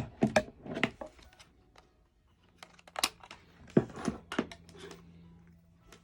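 Handling noise: sharp clicks and short rustles in two clusters as a cable and multimeter test probes are picked up and put in place for a continuity test.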